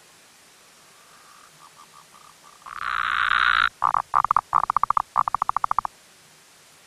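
Blue Mountains tree frog calling: a few soft short notes, then about three seconds in a long loud note, followed by several quick trills of rapid pulses.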